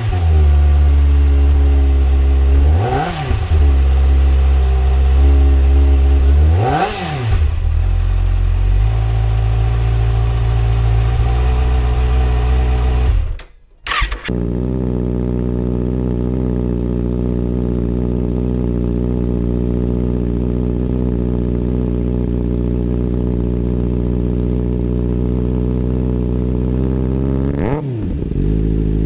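Kawasaki ZX-6R inline-four motorcycle engine idling on what is likely its stock exhaust, blipped twice to a quick rev that falls straight back to idle. After a short break it idles steadily, with one more quick blip near the end.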